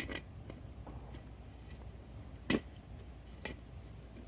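A few sharp clicks and knocks, the loudest about two and a half seconds in, from handling as an inner tube's valve stem is worked into the hole in a wheelbarrow rim.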